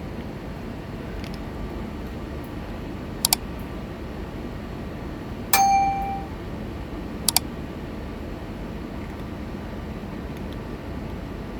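A single metallic clang with a short ringing tone about halfway through, with pairs of sharp clicks before and after it, over a steady low rumble.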